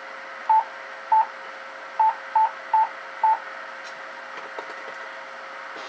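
Six short electronic beeps of one pitch from a ham radio transceiver, unevenly spaced over about three seconds, above a steady background hiss; a few faint clicks follow near the end.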